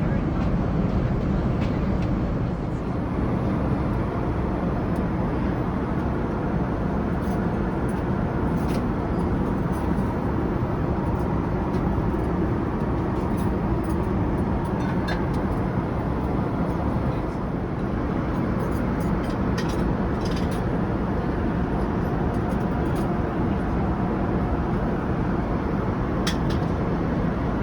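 Steady cabin noise of a Boeing 787-9 in cruise: the even rush of airflow and engine noise, strongest in the low end, with a faint steady hum and a few faint light clicks.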